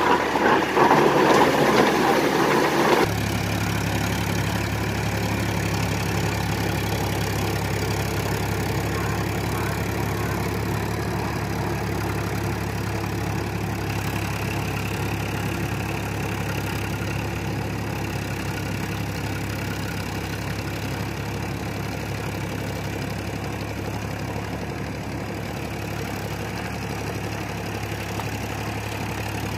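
Powertrac Euro 50 tractor's diesel engine running steadily at about 1500 rpm in low third gear, driving a 6-foot rotavator through flooded paddy mud. For the first three seconds it is loud and noisy up close beside the rotavator. It then changes abruptly to a steady engine drone heard from farther off, fading slightly as the tractor moves away.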